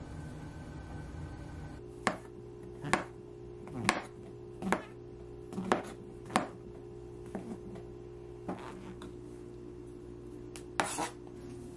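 Kitchen knife slicing button mushrooms on a plastic cutting board. The blade knocks sharply on the board about once a second for six cuts, then comes down a few more times, more softly and less often, over a steady low hum.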